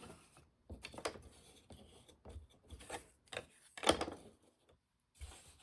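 Scattered light clicks and soft rubbing of small items being handled on a workbench, with a sharper tap a little under four seconds in.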